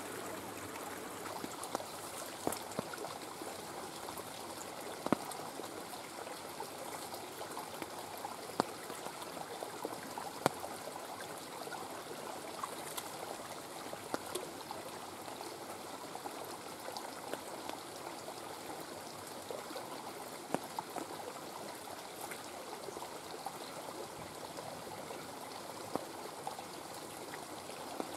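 Shallow rocky stream trickling steadily, with scattered small splashes and clicks as hands rinse a plastic bag and bottle in the water.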